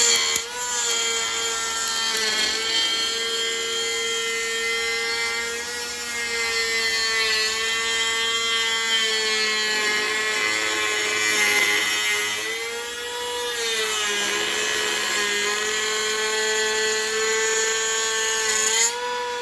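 Voto 21V cordless planer with a brushless motor, running steadily with a high whine, planing wood. Its pitch sags a little under load and picks back up twice, about two-thirds of the way through and near the end.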